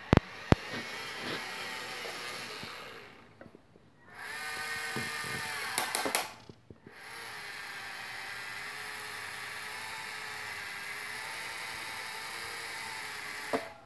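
Small electric motors and gearing of a 1/12-scale Dickie Linde H40D model forklift whirring in three runs with short pauses between them. There are sharp clicks at the start and again around the middle. The last and longest run holds a steady pitch and ends with a click.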